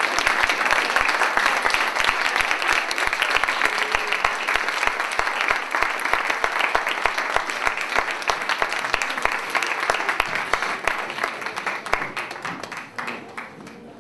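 Audience applauding: dense, steady clapping that thins out and fades over the last two seconds.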